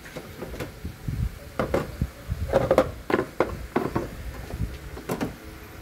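Irregular clinks and knocks of hand tools and engine parts being handled, with a cluster of louder knocks a few seconds in.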